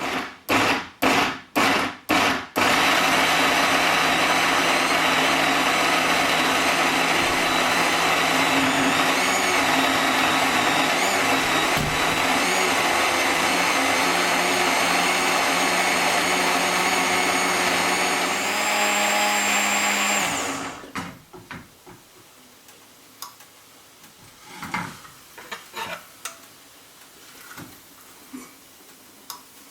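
Electric blender motor pulsed about five times in quick succession, then run steadily for about 18 seconds before it stops. Light kitchen clicks and knocks follow.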